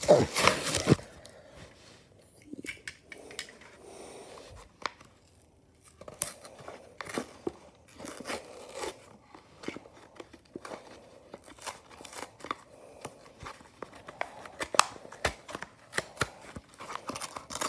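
Cardboard backing of a blister-packed toy car card being torn and peeled away from the plastic bubble by hand: a loud rip at the start, then stop-start tearing, crinkling and sharp clicks of the plastic.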